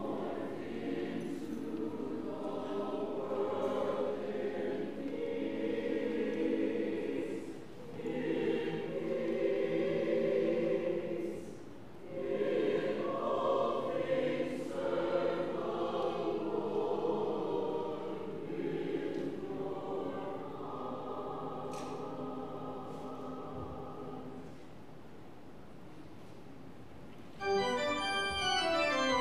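Church choir singing a short sung response in sustained phrases, with organ. About two seconds before the end a louder organ piece begins.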